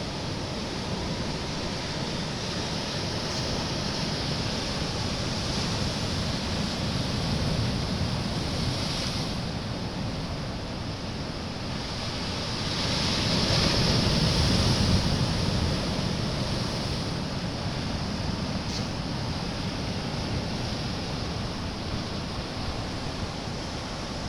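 Sea waves breaking and washing on a beach, a steady surf with a bigger wave swelling up about halfway through. Wind buffets the microphone.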